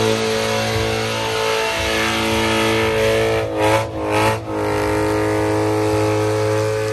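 Dodge Challenger Hellcat V8 held at high revs during a burnout, with the rear tyres spinning. About three and a half seconds in, the revs dip and climb back, then hold steady again.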